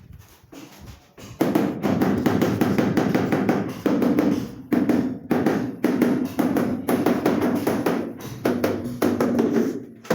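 Rapid tapping on wall tile, several taps a second in runs with brief pauses, as a tile is tapped down to bed it into the mortar. It starts about a second and a half in.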